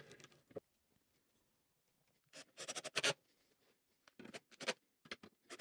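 Pencil scratching in a few short strokes on OSB board, with light handling knocks as a metal full-extension drawer slide is laid on the drawer side. The loudest cluster of strokes comes about halfway in.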